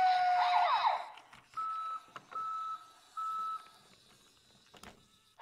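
Electronic sound effects from a Brio Smart Tech Sound toy locomotive's speaker: a gliding pitched sound effect in the first second, then three even beeps. A single sharp click comes near the end.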